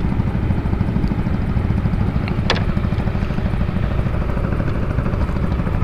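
Wind buffeting an action camera's microphone: a low, unbroken rumble, with a single sharp click about two and a half seconds in.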